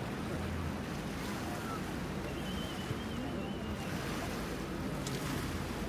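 Steady riverside noise: wind on the phone's microphone over the River Thames washing along the foreshore, with no distinct events.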